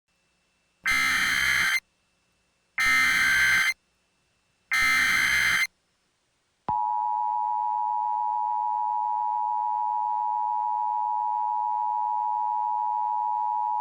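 Emergency Alert System alert tones: three roughly one-second bursts of SAME header data tones with gaps between them, then the steady two-tone EAS attention signal (853 and 960 Hz) starting about seven seconds in.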